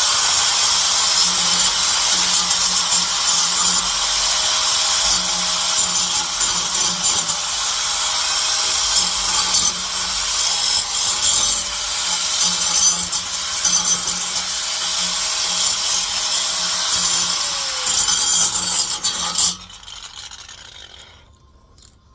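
Electric power tool cleaning the end of a truck's steel exhaust pipe, its abrasive head scrubbing against the metal with a steady rasp over the motor's whine. The motor runs steadily, then winds down and stops about 19 seconds in.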